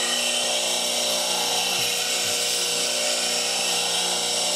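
Bench grinder with a CBN wheel grinding a high-speed steel spindle roughing gouge. It makes a steady grinding hiss over the motor's even hum.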